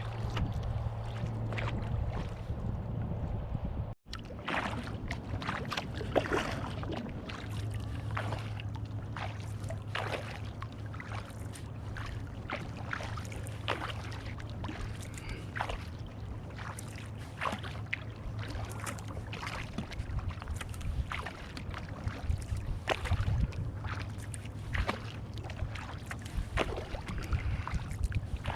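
Kayak paddle blades dipping and splashing on calm lake water, stroke after stroke, with water trickling off the blades. A steady low hum runs underneath, and the sound breaks off briefly about four seconds in.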